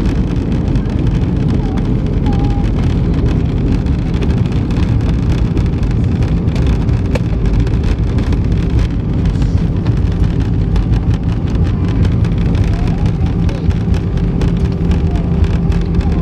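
Cabin noise inside an Airbus A320 rolling on the ground after landing: a loud, steady low rumble with a steady engine hum.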